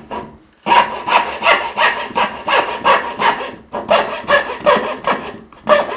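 Brand-new, factory-sharp Veritas backsaw cutting into a pine board by hand: quick back-and-forth strokes, about three a second, with a short pause after the start and another near the middle. The saw cuts very grabby and tears out wood.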